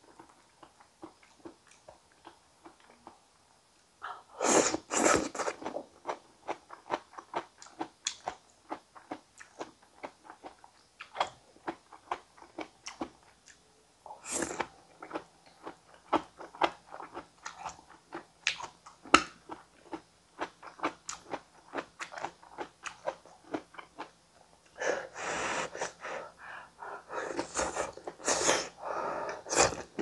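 Chewing and wet mouth sounds of someone eating a soft boiled-potato and tomato gratin: a run of small clicks and smacks. Louder noisy stretches come about four seconds in, around the middle, and for several seconds near the end.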